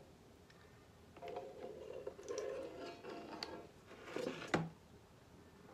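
Liquid patina trickling from a small plastic bottle onto a flat steel bar and dripping into a plastic basin, with one sharp knock about four and a half seconds in.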